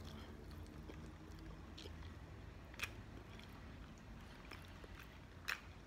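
Faint chewing of a corned beef sandwich, with two soft clicks, one about three seconds in and one near the end.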